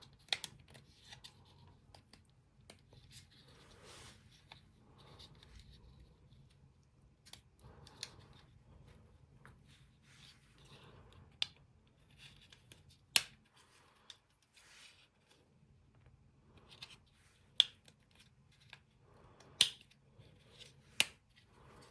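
Plastic tabs on a dishwasher control panel snapping and clicking as the green control board is pried loose, amid quieter scraping and rustling of plastic. Several of the clicks are sharp and loud, most of them in the second half.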